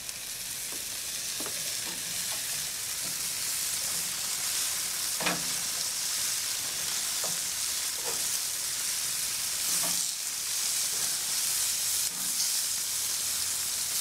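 Chicken thighs in port-wine marinade sizzling on a hot gas grill, a steady hiss, with a few sharp clicks of metal tongs against the grate as the pieces are turned.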